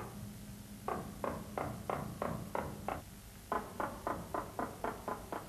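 Woodcarver's mallet tapping a chisel into a wooden figure, steady strokes about three a second that quicken to about four a second halfway through.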